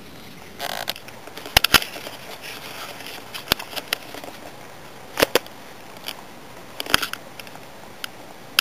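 A handful of sharp clicks, spaced a second or two apart, over a faint steady hiss, with a brief rustle about a second in.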